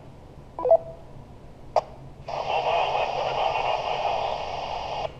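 Handheld two-way radio receiving a reply: a short beep and a click, then about three seconds of steady hiss that cuts off sharply as the transmission ends. It is a weak FM signal from a mobile station, low on audio and heavy with hiss.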